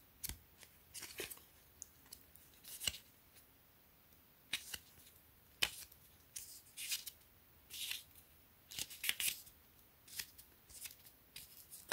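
Pages of a small 32-page paperback mini book being turned by hand, one after another: short, soft papery flicks and rustles at an uneven pace, a second or so apart with brief pauses.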